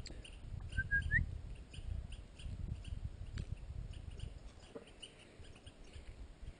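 A low rumbling noise throughout, with one short high chirp about a second in that holds its pitch and then rises at the end.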